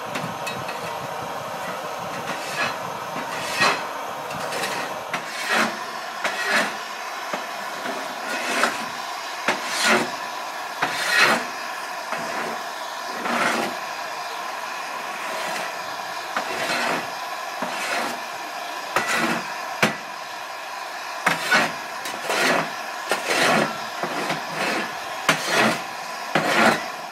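A fireman's steel shovel scraping and knocking on the cab floor of a steam locomotive, in irregular strokes about once a second or so, over the steady hiss of the engine standing in steam.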